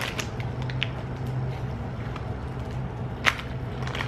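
Plastic candy bag being handled as a dried li hing mui plum is taken out: a few faint crinkles and clicks, then one sharp crackle about three seconds in, over a low steady hum.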